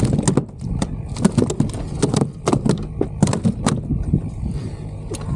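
Irregular knocks and thumps on a plastic kayak's deck as a freshly landed flounder and the landing net are handled, thickest over the first four seconds, over a steady low rumble of wind on the microphone.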